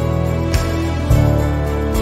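Background music: sustained bass notes under a light, regular beat.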